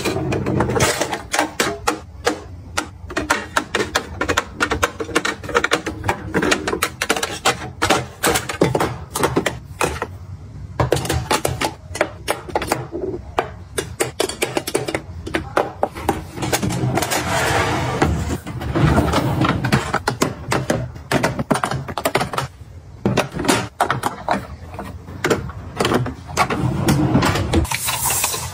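Plastic makeup compacts, palettes and lipsticks clicking and knocking against a clear acrylic drawer organizer as they are lifted out and set in place: many small taps and clatters with short pauses between.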